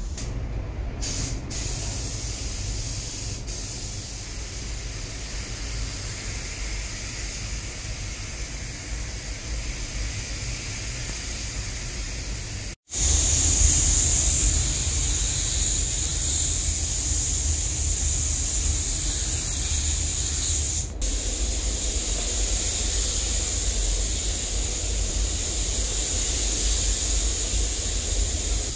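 A gravity-feed paint spray gun hisses steadily with compressed air as it sprays the car's roof, over the low rumble of the paint booth's ventilation. The sound cuts out for a moment a little before halfway and comes back louder. Before the cut there is a quieter steady hiss.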